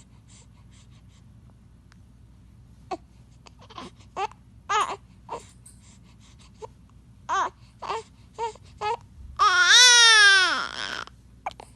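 A baby with hiccups crying: after a quiet start, a string of short, sharp hiccuping sobs comes roughly every half second, then near the end one long cry that rises and then falls in pitch.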